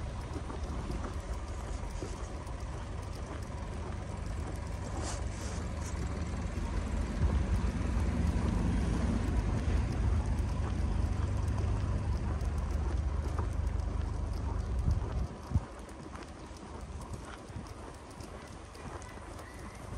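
Footsteps crunching on snow at a walking pace, over a low rumble that swells and then drops away about fifteen seconds in.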